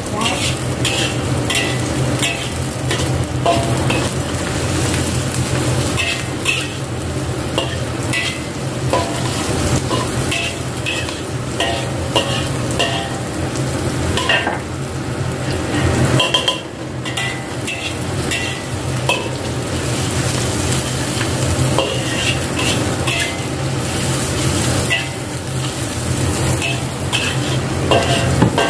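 Shallots and garlic sizzling in hot oil in a wok while a spatula stirs them, with frequent scrapes and clinks of the spatula against the wok. A steady low hum runs underneath, and the stirring pauses briefly about two-thirds of the way through.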